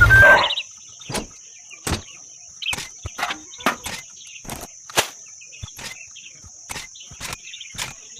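Steady high insect trill, like crickets, with about a dozen sharp, irregular clicks and knocks scattered through it. A louder sound cuts off about half a second in.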